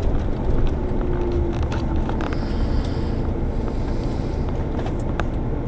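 Coach bus cabin heard from inside while driving: steady engine and road rumble with small rattles, and a faint whine that drops slowly in pitch over the first two seconds.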